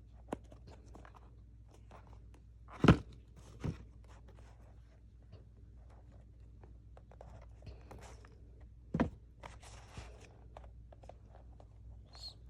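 Shoe box and wrapping paper being handled: scattered rustling and crinkling, with two louder knocks, about three seconds in and again about nine seconds in.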